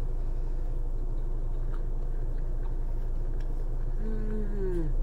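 A steady low hum, and about four seconds in, a woman's closed-mouth "mmm" of enjoyment that falls in pitch while she savours a mouthful of ice cream.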